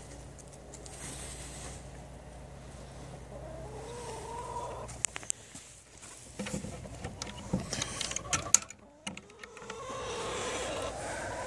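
A wooden chicken coop's hook-and-eye latch and hatch being worked open: a run of sharp clicks and knocks, the sharpest about two-thirds of the way through. Hens clucking inside the coop shortly before the clicks and again near the end.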